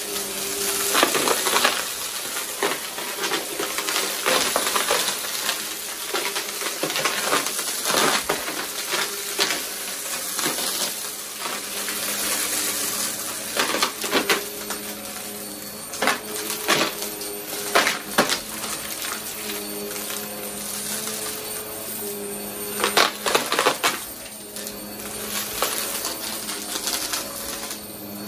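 Vacmaster upright bagless vacuum cleaner running over carpet, its motor a steady drone. Coins and small debris are sucked up with many sharp clicks, crunches and rattles that come in irregular clusters.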